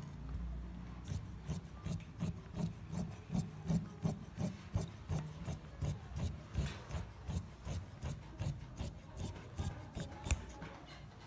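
Large tailor's shears cutting through dress fabric in a steady run of snips, about three cuts a second. The snipping starts about a second in and stops shortly before the end.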